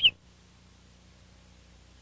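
House finch song, a rapid warble of chirps, cuts off abruptly a fraction of a second in, leaving only a faint steady low hum.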